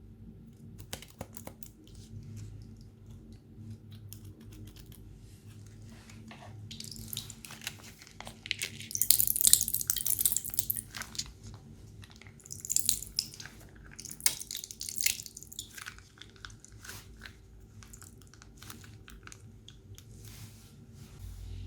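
Slime being squeezed and handled in piping bags: wet, crackly squishing with scattered sticky clicks, and louder hissing, crackling squelches in three stretches through the middle. A faint steady low hum underneath.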